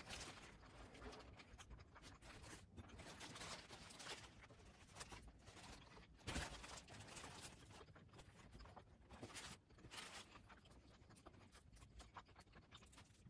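Faint eating sounds: chewing of a crispy chicken burger and crinkling of its paper wrapper, as short scratchy rustles and small clicks, the loudest about six seconds in.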